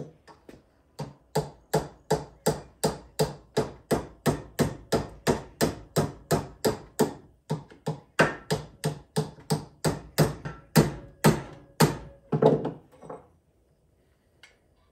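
A hammer beating a torch-heated, red-hot metal rod held in locking pliers against a bench vise to bend it: about three sharp blows a second, kept up steadily for some twelve seconds, then stopping.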